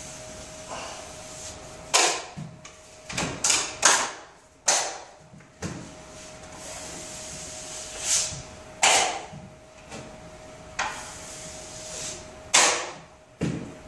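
Drywall knife and wide blade scraping joint compound across drywall in repeated short swipes, about ten of them, irregularly spaced. A faint steady hum runs underneath.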